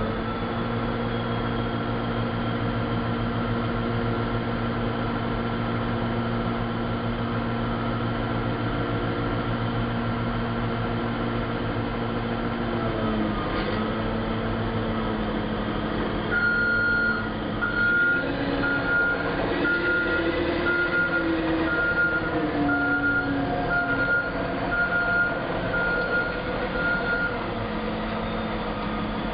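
Caterpillar 988F wheel loader's V8 diesel engine idling steadily, then rising and varying in pitch as the machine backs up. From about halfway in, its reverse alarm beeps a little over once a second for about ten seconds.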